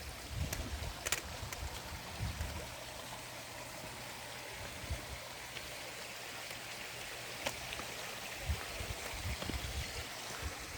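Steady rush of flowing water from a small forest stream, with occasional low thumps and a few faint clicks.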